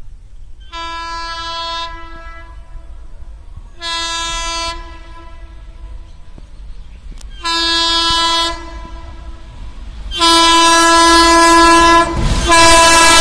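Locomotive horn of an approaching passenger train, sounded in a series of blasts of about a second each, getting louder as it nears. The fourth blast is held longer, and another begins just before the end.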